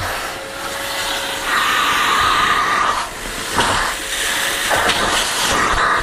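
Kärcher Puzzi 8/1 C spray-extraction cleaner running, its suction drawing air hard through the upholstery nozzle on a fabric seat. The rushing air grows higher and louder from about one and a half to three seconds in, then changes a few times as the nozzle is moved.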